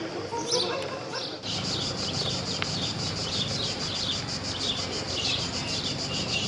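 Small birds chirping. About a second and a half in, a steady fast-pulsing insect buzz, cicadas, comes in under them and the birds keep chirping.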